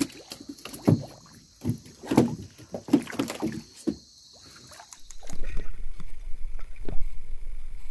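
Water splashing and knocking irregularly at the side of a small boat. About five seconds in, the sound turns into a muffled, steady low rumble as the camera goes under the water.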